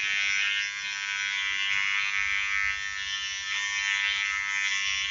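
Wahl GroomsMan Pro cordless trimmer running with a steady high-pitched buzz while its blades cut body hair, the level rising and dipping slightly as it is moved over the skin.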